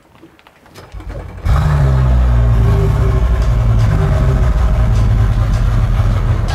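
Twin Mercury 400 outboard motors starting up: a low rumble, then about a second and a half in the engines catch and run loud and steady.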